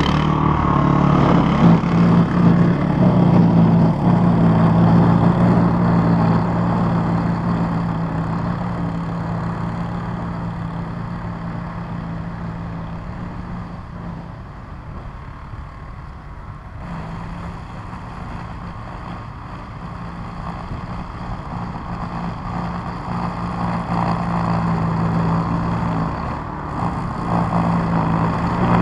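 Toro Power Clear 518 ZR single-stage snow blower's four-stroke engine running steadily under load while it throws deep snow. The sound fades as the machine moves away, is weakest around the middle, then grows louder again as it comes back.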